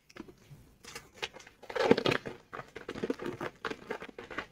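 Packaging being handled and unwrapped, irregular crinkling and rustling, loudest about two seconds in.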